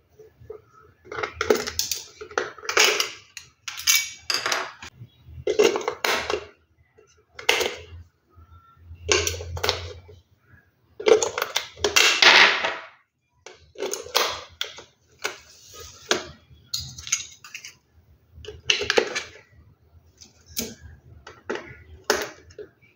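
Hard plastic clicking and clattering in irregular bursts as a screwdriver backs a small screw out of a plastic toy's battery cover and the cover is lifted off and pressed back on over the AA batteries.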